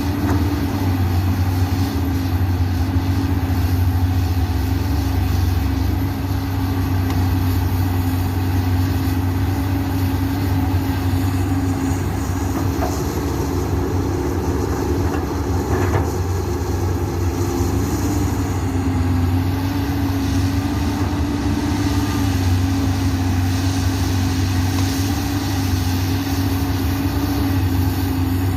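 Komatsu PC200 excavator's six-cylinder diesel engine running steadily, a continuous low drone with a mid-pitched hum that dips and rises slightly now and then.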